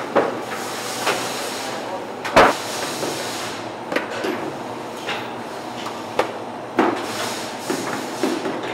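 A fish-portion packing line running: a steady clatter of conveyor machinery and plastic modular belts, broken by irregular sharp clacks and knocks, the loudest about two and a half seconds in.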